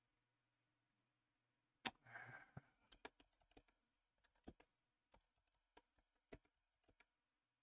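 Faint keystrokes on a computer keyboard as short shell commands are typed. After almost two seconds of quiet comes a sharp key press with a brief muffled noise after it, then about a dozen scattered taps over the next five seconds.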